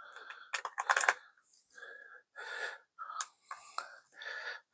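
A USB cable plug being pushed into a power bank's port, with sharp plastic clicks about half a second to a second in, then short handling sounds as the cable is laid out.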